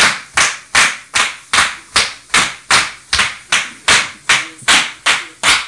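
A fast, even run of loud, sharp smacks, about two and a half a second and some fifteen in all.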